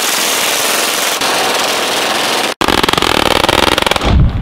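PPSh-41 submachine guns firing full-auto bursts of 7.62×25mm Tokarev, a very fast, continuous rattle of shots. A long burst breaks off abruptly about two and a half seconds in, and another rapid burst follows, stopping shortly before the end.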